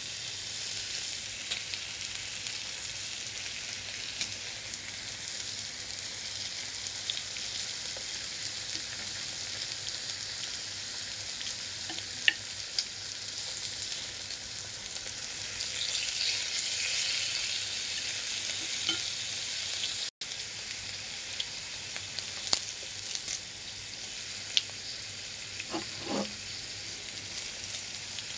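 Pork slices sizzling on an electric grill plate: a steady frying hiss that swells for a few seconds around the middle. A few sharp clicks come from wooden chopsticks turning the meat on the plate.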